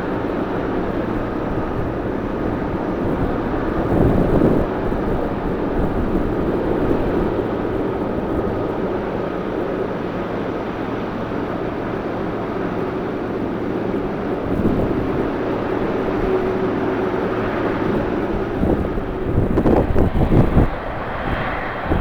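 Jet airliner engines running steadily across the airfield, with gusts of strong wind buffeting the microphone, heaviest near the end.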